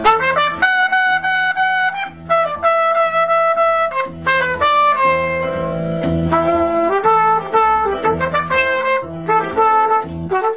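Trumpet improvising a jazz solo in G Dorian over a G minor 7 chord, using the full scale including the sixth, with a backing track of bass and chords underneath. The line moves between short notes and longer held ones.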